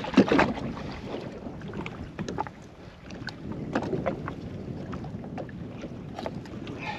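Scattered small clicks and taps as a caught fish is handled and unhooked, over steady wind on the microphone and water moving against the jet ski.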